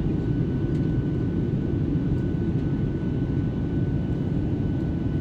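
Cabin noise of a Boeing 737-700 airliner in flight, heard from a window seat over the wing: a steady low roar of the engines and airflow, with a faint steady high tone above it.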